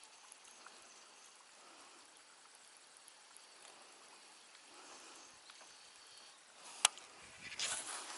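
Faint ambience on the water with light lapping. Near the end, a single sharp click from the angler's baitcasting rod and reel, then a short scraping, rushing burst of reel and line handling.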